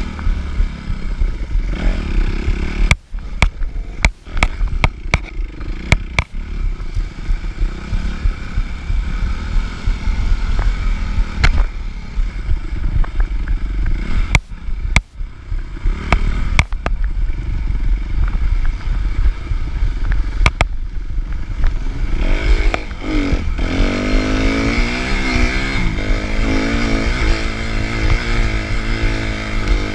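Suzuki RM-Z 250 four-stroke single-cylinder dirt bike engine running under race riding, on and off the throttle, with sharp knocks and clatter as the bike goes over rough ground. About three-quarters of the way through the engine revs up and down repeatedly through the gears.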